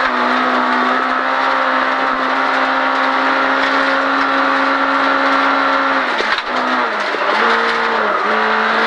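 Volkswagen Golf 16S rally car's four-cylinder 16-valve engine held at high revs under full throttle, heard from inside the cabin. The engine note stays steady, then the revs dip briefly about six seconds in and again near the end.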